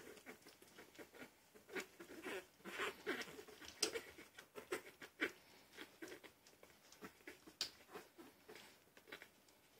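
Young Shih Poo puppies nursing: soft, irregular wet suckling smacks and clicks, several a second, mixed with small squeaks, busiest in the first half.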